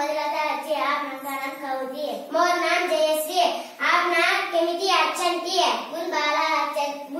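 Children singing, a high sing-song line in phrases with brief breaks between them.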